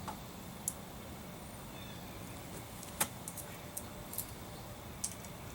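A handful of short, sharp clicks and clinks, spaced irregularly, over a faint steady background noise.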